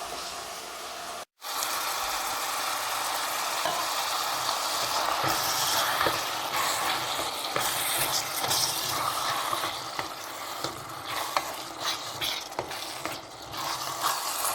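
Beef mince frying and sizzling in a pan while it is stirred, the spoon scraping and clicking against the pan.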